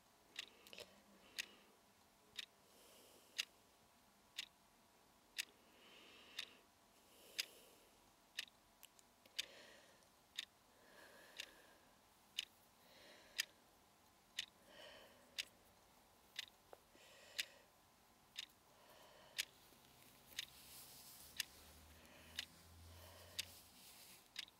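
A clock ticking steadily, about once a second, with faint soft sounds between the ticks.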